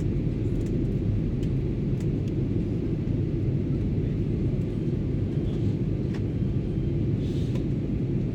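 Steady cabin noise inside a Boeing 737-800 in flight: a low roar from its CFM56-7B turbofan engines and the airflow over the fuselage. A few faint clicks come through above it.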